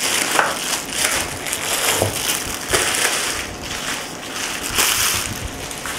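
Bubble wrap being handled and pulled open by hand: dense crinkling and crackling of plastic, with several louder crackles scattered through.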